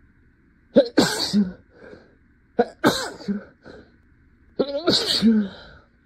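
A woman sneezes three times in a row, about two seconds apart, each sneeze a short 'ah' run-up breaking into the burst.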